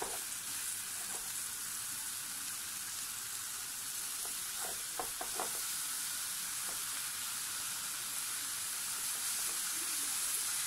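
Ribs sizzling steadily on a hot electric grill plate as teriyaki sauce is brushed onto them, with a few faint clicks about halfway through.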